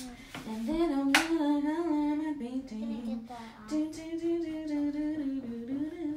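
A voice humming a wordless, wavering tune with long held notes and a short break midway, while paint brushes work in cups. A single sharp tap sounds about a second in.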